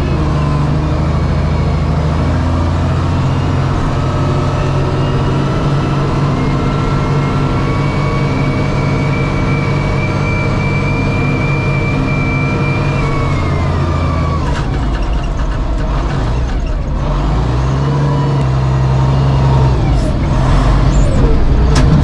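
John Deere wheel loader's diesel engine running under load as it pushes snow with the bucket, with a steady high whine over the engine for several seconds in the middle. In the second half the engine note rises and falls and grows louder as the bucket is lifted.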